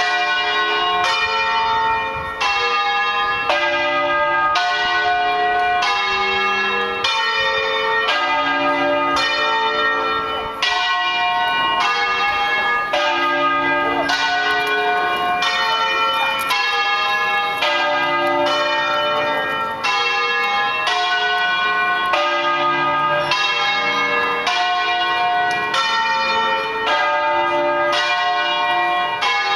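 Five bronze church bells, tuned D, F, G, A and C, ringing a Bolognese-style doppio from the raised, mouth-up position. The strikes come in a steady, regular rhythm, and their ringing tones overlap without a break.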